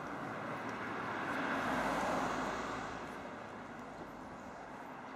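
Road traffic: a vehicle passes on the street, its tyre and engine noise swelling to a peak about two seconds in and then fading away.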